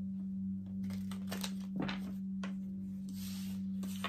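A steady low hum throughout, with a few soft clicks and a brief rustle over it.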